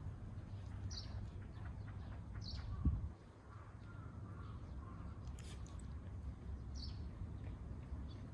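Outdoor birds chirping: short high calls a few times, spaced a second or more apart, over a steady low wind rumble. A single low thump about three seconds in.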